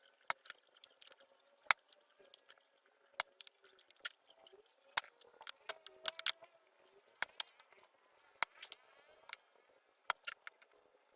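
Irregular light clicks and taps, a dozen or more at uneven intervals, of small hard objects being handled and knocked together.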